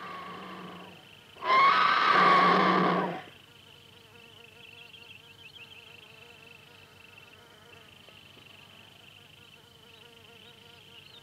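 Griffon vultures giving harsh, squealing calls: one tails off within the first second, then a louder one lasts under two seconds from about a second and a half in. After that only a faint, steady high-pitched insect buzz remains.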